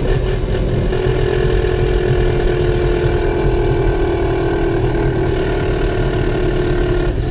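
Ford MT82 Getrag six-speed manual gearbox in a 2014 Mustang whining under drive: a loud, steady whine over the engine and road noise inside the cabin, its pitch drifting slowly lower. The whine is the sign of a failing transmission.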